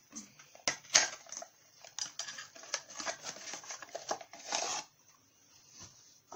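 Packaged handheld vegetable spiralizer being opened and handled, its box making a quick run of clicks, taps and scraping for about four seconds.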